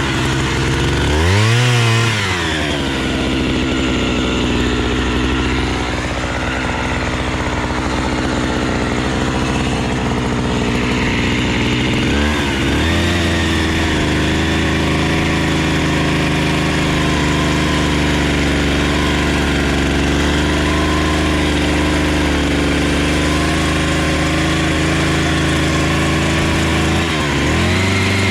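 Two-stroke chainsaw revved up and back about two seconds in, then held at high revs in a long steady run, dipping briefly near the middle and again near the end.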